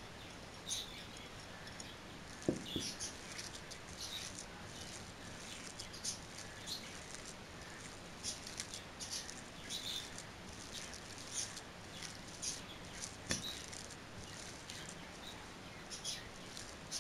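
Hands kneading raw beef mince with chopped onion, coriander and green chillies in a glass bowl: soft, wet squelching and patting in irregular bursts, with two sharper knocks, one a few seconds in and one near the end.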